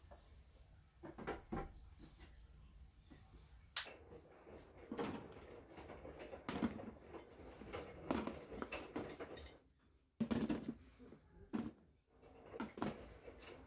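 Clear plastic food storage containers being handled and set down on a metal wire shelf rack: scattered light knocks and clatter every second or two.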